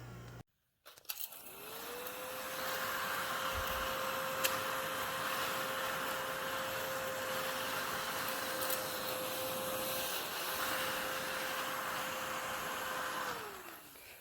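Small motor of a mini desktop crumb vacuum cleaner spinning up about a second and a half in and running with a steady whine and whir. It winds down near the end.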